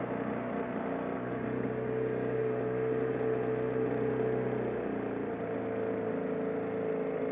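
Tohatsu 5 hp outboard motor running steadily under way, a constant engine drone with a whine on top.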